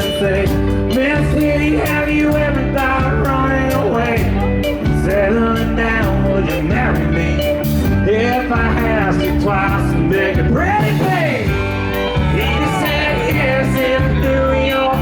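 Live country band playing an instrumental passage: bass and drums keeping a steady beat under lead lines with bending notes.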